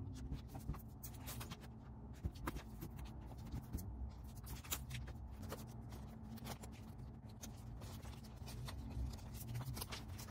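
Faint, irregular taps, clicks and rustles of photo prints and album pages being handled, as photos are stuck one by one into a photo album, over a low steady room hum.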